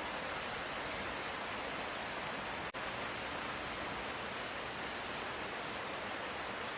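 Steady hiss of light rain, with a split-second dropout a little under three seconds in.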